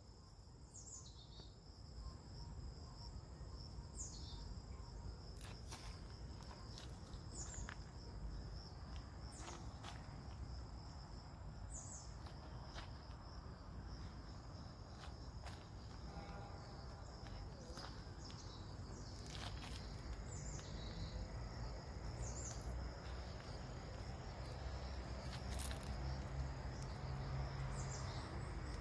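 Late-summer insect chorus: a steady high-pitched trill that never pauses, with short high falling chirps every few seconds and a low rumble underneath that grows louder toward the end.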